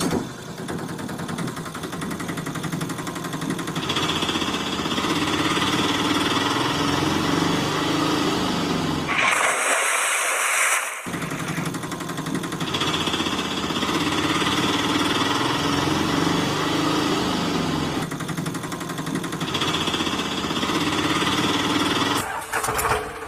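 Small engine sound effect, chugging steadily with a fast rhythm, laid over toy auto rickshaw footage. About nine seconds in it drops out for a second and a half under a rushing hiss, then the engine sound returns.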